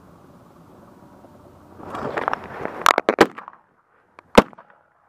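Rustling of a layout blind's mesh cover being thrown open, then several sharp shotgun shots in quick succession about three seconds in and one louder shotgun shot near the end, fired at flying ducks.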